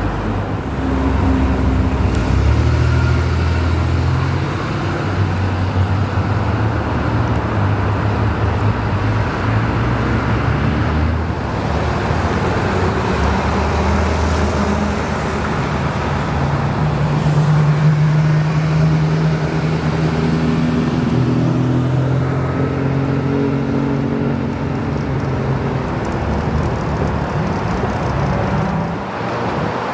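Sports cars accelerating away one after another, each engine note climbing and changing pitch: a Nissan 300ZX's V6 pulling up a ramp, then a Porsche 911 GT3 RS's flat-six passing.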